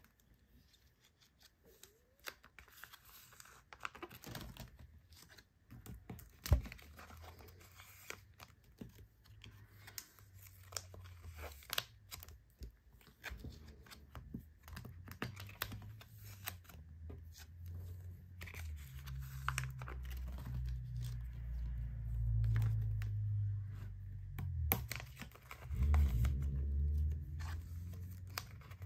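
Clear plastic binder sleeves crinkling and rustling as photocards are slid into and out of their pockets, with scattered light clicks and taps and one sharp knock about six seconds in. A low rumble builds underneath through the second half.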